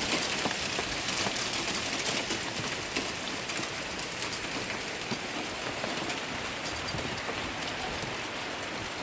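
Hail and rain pelting down on hard surfaces: a dense steady hiss dotted with many sharp ticks of hailstones striking, easing slightly over the seconds.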